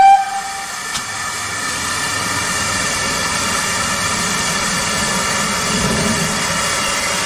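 GWR steam locomotive: a short whistle note that ends in the first second, then a steady rushing roar of steam and train.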